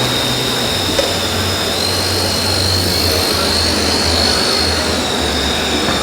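Steady high-pitched whine of the electric motors driving radio-controlled construction models, shifting slightly in pitch a couple of times, over a low hum. A single light click about a second in.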